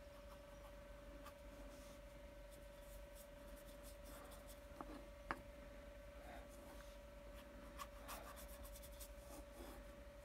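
Faint scratching and dabbing of a fine paintbrush on a small stretched canvas, with a light click about halfway, over a steady thin tone.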